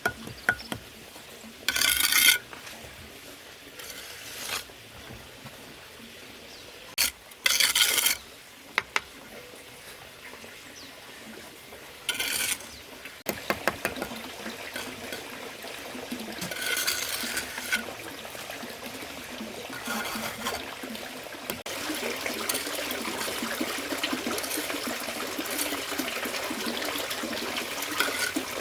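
Hand scraping and rubbing of masonry work, with a few short, harsh scrapes early on and then steady, busy scraping from about halfway through.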